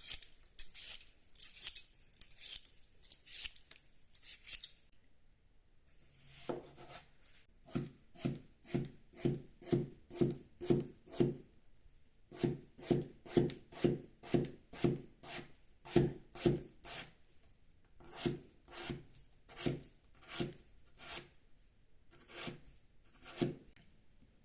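A kitchen knife cutting into a raw potato in a run of steady strokes, about two a second, each ending in a dull knock: the potato being sliced thinly for hasselback potatoes. It opens with a few seconds of lighter, scratchier strokes.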